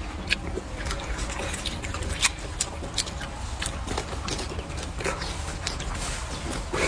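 Close-miked eating: a person chewing and biting food, with irregular wet clicks and smacks of the mouth several times a second.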